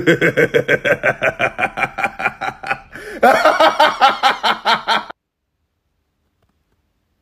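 A man laughing hard in quick, rhythmic bursts, louder again about three seconds in, then cutting off suddenly.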